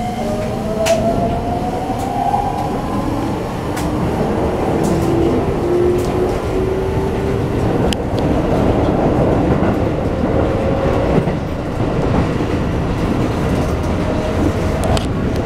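Keikyu New 1000 series train's Toyo IGBT-VVVF inverter and traction motors whining in rising tones as the train accelerates away from a station, heard inside the passenger car. Steady wheel and running noise sits under it, with a few sharp clacks over rail joints.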